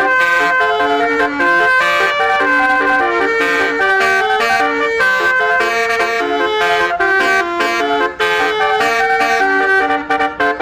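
Basuri telolet horn, a multi-trumpet vehicle horn, playing a loud, fast melody of short held notes, several tones sounding together and the pitch changing every fraction of a second.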